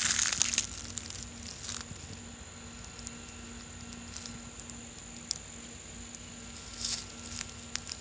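Dry leaves and twigs rustling and crackling as brush is handled or brushed against, in short bursts at the start, about two seconds in and near the end, with small scattered clicks. A faint steady hum runs underneath.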